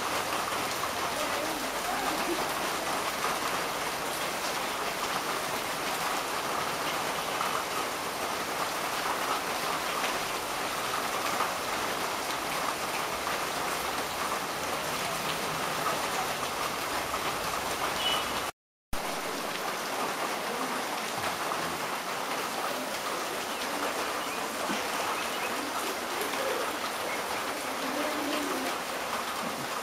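Steady rain falling on wet gravel and puddles. The sound breaks off completely for a moment about two-thirds of the way through.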